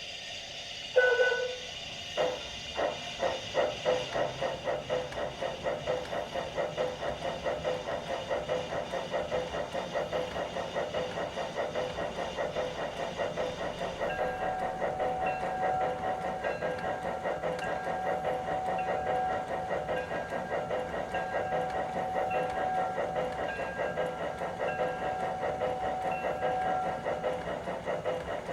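Steam-locomotive sound from the Zimo sound decoder of an LGB G-scale H.K. Porter model, played through the model's loudspeaker and built from recordings of a real Porter: a short whistle toot, then exhaust chuffs that start slow and quicken into a steady beat as the locomotive pulls away, over a steam hiss. From about halfway a ringing tone repeats over and over.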